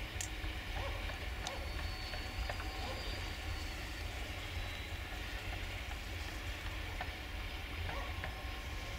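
Empty freight hopper wagons rolling slowly along the track with a steady low rumble. A few faint clicks and a thin high squeal sound over it.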